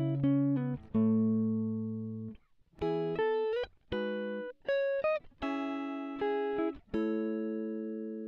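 Background music: plucked guitar-like notes and chords, each struck and left to ring and fade, a few of them sliding in pitch.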